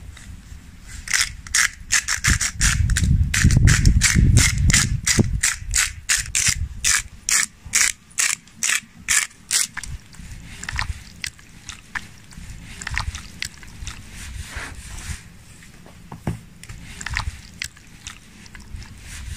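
Hand-twisted spice grinder milling over a bowl, a fast, even run of crunching, ratcheting clicks, about three or four a second, that stops after about ten seconds, with a low rumble under the first few seconds. Then quieter, scattered sounds of hands mixing and rubbing raw chicken pieces in a glass bowl.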